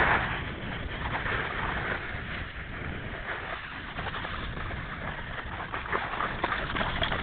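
Snowskate deck sliding over crusty snow and ice: a steady scraping hiss of the board's base on the snow, with scattered sharp clicks and knocks as it rides over bumps, more of them in the second half.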